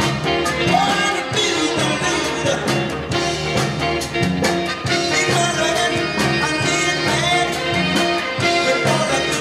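Dance music playing loudly, with a singing voice over a steady beat.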